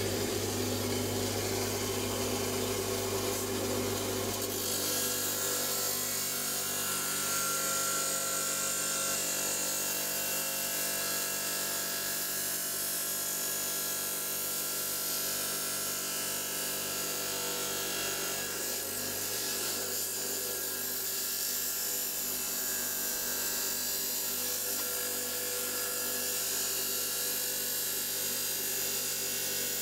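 Electric stone saw running steadily as it cuts through a rock nodule, a continuous grinding over a motor hum, with the low hum dropping away about four seconds in.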